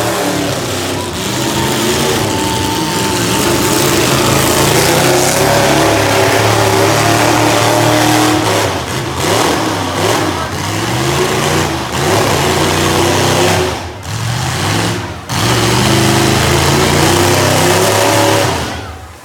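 Demolition derby cars' V8 engines running hard and revving, the engine pitch rising and falling over and over, with two brief dips in loudness near the end.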